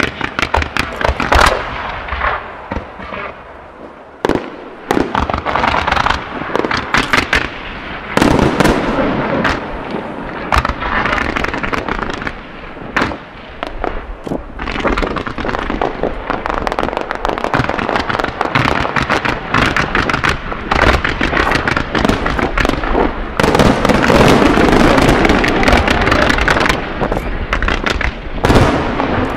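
Fireworks display firing: rapid volleys of reports and crackling from comets and low-level bursts. It thins to a few separate bangs a few seconds in, then builds again, densest and loudest near the end.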